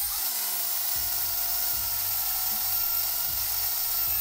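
Power drill running steadily with a 13 mm HSS twist bit pressed against a steel box-section, making a constant high whine. The bit barely cuts: its point is not ground to a proper drilling angle.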